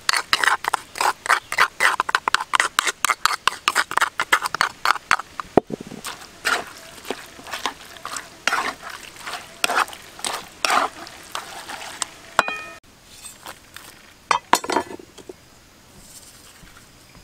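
A utensil scraping and stirring chili paste into raw chicken pieces in a wok: quick, rapid strokes for the first five seconds or so, then slower, spaced scrapes. A short ringing clink about two-thirds of the way in.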